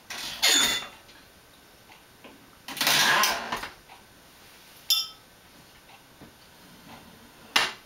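Floor-standing wine corker being worked on a glass wine bottle: a short rasping stroke of the lever and cork mechanism about half a second in and a longer one around three seconds in, then a glass clink with a brief ring about five seconds in and a sharp click near the end.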